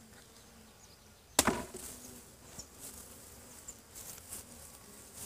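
One sharp wooden knock about a second and a half in, a hive frame jarred against the wooden hive box to shake the honeybees off it, over the buzzing of the bees.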